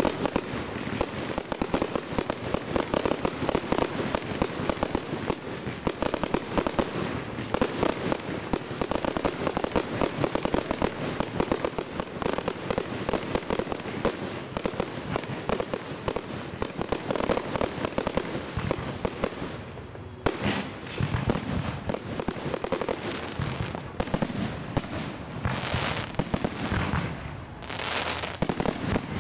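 Fireworks display: a dense, rapid barrage of bangs and crackling that thins after about twenty seconds into separate bursts with short gaps between them.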